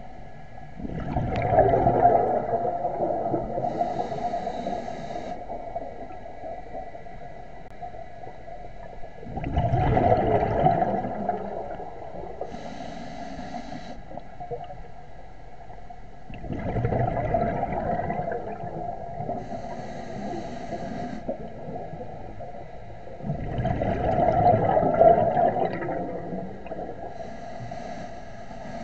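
Scuba diver breathing through a regulator underwater: four loud gurgling bursts of exhaled bubbles about seven seconds apart, each followed by the shorter hiss of an inhalation through the regulator.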